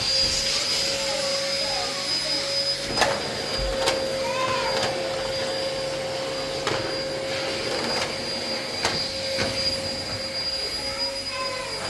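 A motor-driven machine running steadily, a whirring rush with a constant whine, broken by a few sharp clicks.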